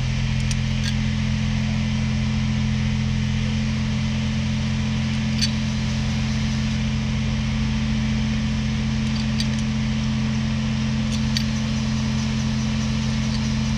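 A steady mechanical hum holding one even pitch throughout, with a few faint light clicks over it.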